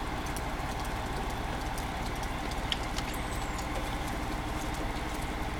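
Fire truck engine idling steadily: a low, even throb with a few faint clicks over it.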